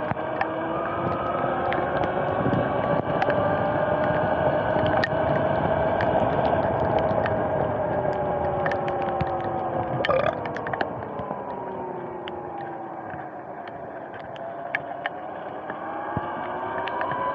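Electric dirt bike's motor and drivetrain whine, rising and falling in pitch with speed, over tyre hiss on a wet road, with scattered small ticks. The whine drops lower and quieter about two-thirds of the way through as the bike slows, then climbs again near the end.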